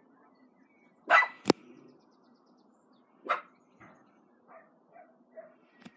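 Small dog, a Bichon Frise, barking: a loud bark about a second in, a sharp click half a second later, another bark just past three seconds, then a few quieter short barks.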